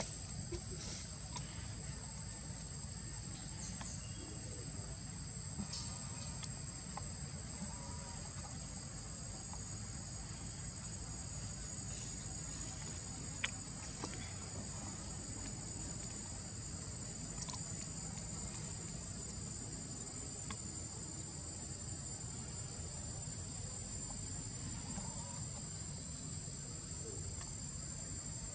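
Steady, high-pitched insect drone that holds unbroken throughout, over a low rumble. A few faint clicks and snaps sound now and then, the sharpest about halfway through.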